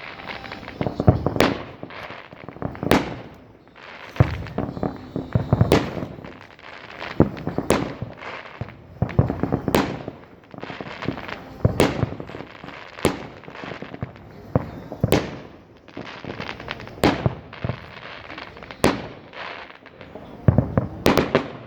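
Fireworks going off: a string of sharp bangs roughly every one to two seconds, each with a ringing tail, and crackling in between.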